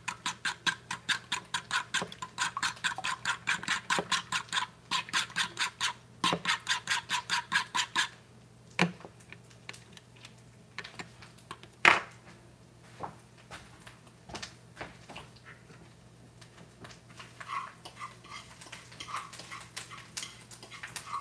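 Fork beating raw eggs in a bowl: a fast, even clicking of about five strokes a second for the first eight seconds, then a few scattered taps and one louder knock about twelve seconds in.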